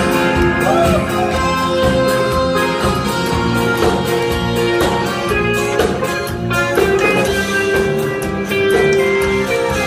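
Live band playing a song's instrumental introduction: guitars, bass and drums, with a held melody line over them and no singing yet.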